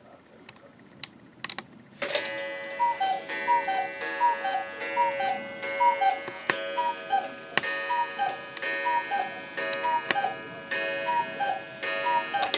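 Cuckoo clock sound: a falling two-note cuckoo call repeated rapidly, about every half second, over a held chord with sharp ticking clicks, starting about two seconds in after a few faint clicks.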